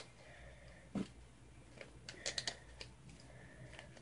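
Faint clicks and rustles of a plastic cosmetics pouch and its wrapping being handled by hand, with a soft knock about a second in and a short run of clicks midway.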